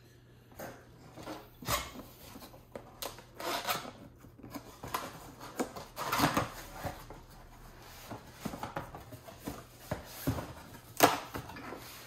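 Unpacking noises: packaging rustling with scattered clicks and knocks as parts of an espresso machine are lifted out of the box, the loudest a sharp knock near the end.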